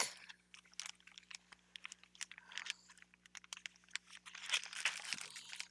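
Crinkling and rustling of craft supplies and their plastic packaging being handled, with many small clicks and taps and two longer crinkly stretches, the second one louder, near the middle and toward the end.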